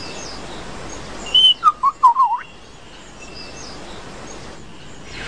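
A bird calling over a steady background hiss: one short high chirp, then a quick run of gliding, warbling whistled notes lasting under a second.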